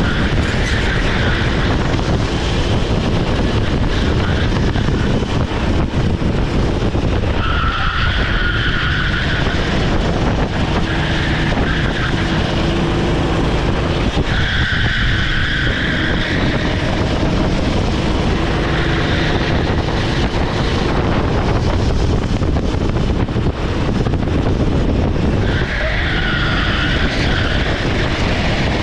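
Onboard sound of a rental kart's Honda GX390 single-cylinder four-stroke engine running hard. The tyres squeal through the corners in stretches of a second or two, about six times.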